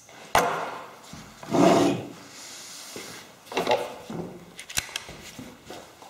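Gloved hands handling an ISSC M22 pistol and its parts on a wooden shelf: a few clicks and knocks of the gun against the wood, with scraping in between and a sharp click about five seconds in.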